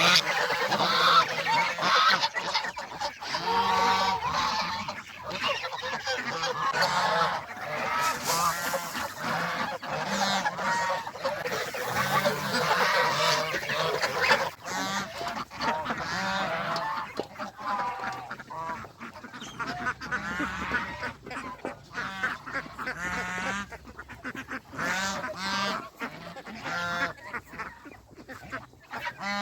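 A flock of domestic geese honking, many calls overlapping without pause, a little less dense in the second half.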